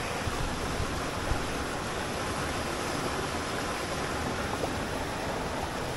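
Steady rushing of a woodland stream's flowing water, an even unbroken noise.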